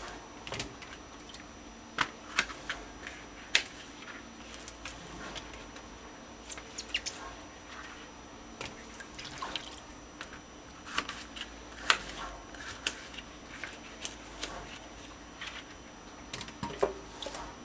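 Irregular knife taps on a wet plastic cutting board and small drips and splashes as chunks of bitter melon are moved into a glass bowl of water.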